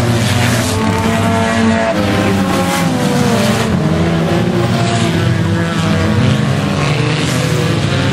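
Several race car engines running hard as a pack of cars passes close by, their notes rising and falling over one another.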